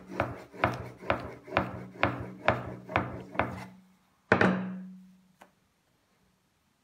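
Wooden rolling pin rolling dough out on a wooden board, a rubbing knock at each stroke, about two strokes a second. The strokes stop about four seconds in, followed by one louder knock.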